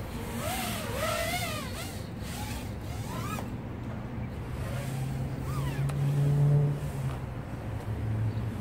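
KingKong Fly Egg 130 micro brushless quadcopter (1105 7000KV motors on a 3S battery) flying, its motor and prop whine sweeping up and down in pitch with the throttle. A steady low hum runs underneath and swells about six seconds in.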